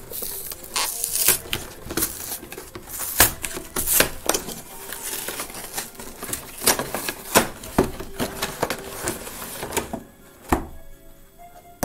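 Cardboard and plastic packaging of a Pokémon Dragon Majesty collection box being torn and pulled open: a busy run of crinkling, ripping and sharp clicks. The handling goes quiet about ten seconds in, with a single thump.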